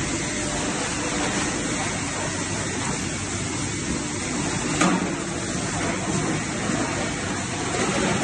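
Industrial plastic shredder (Net Plasmak Shredder-1200) running with a steady noise while crushing PVC, with one sharp crack about five seconds in.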